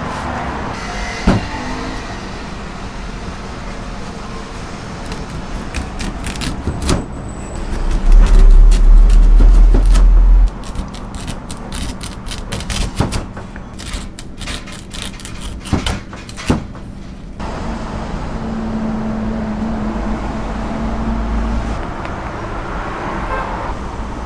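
A knife cutting through sweet potato onto a plastic cutting board, heard as many quick, irregular knocks over a steady background hum. A loud low rumble lasts about two seconds in the middle.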